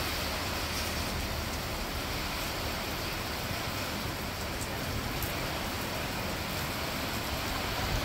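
Heavy rain pouring down onto a street, a steady even hiss.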